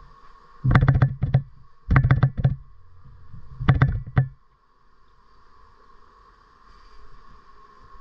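Three short bursts of rapid knocking and rattling, each lasting under a second, over a faint steady hum.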